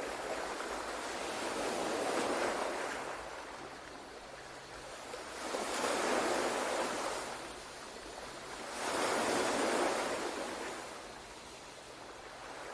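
Ocean waves washing ashore, a soft hiss of surf that swells and fades in slow surges about every four seconds, three full swells with a fourth building near the end.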